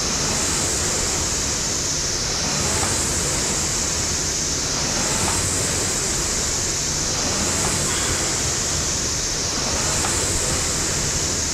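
Air rowing machine's fan flywheel whooshing steadily, surging with each drive stroke about every two and a half seconds.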